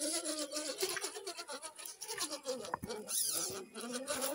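RC rock crawler's electric motor and gearbox whining, the pitch rising and falling as the throttle is worked while it climbs over creek rocks.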